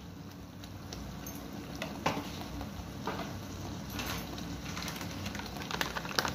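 Masala paste sizzling steadily in hot oil in a pan, with a few small crackles.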